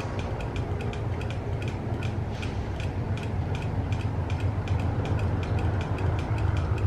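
GE AC44i diesel-electric locomotives running light at low speed, their engines a steady low rumble growing slightly louder as they approach. A fast, regular ticking of about four ticks a second runs over it.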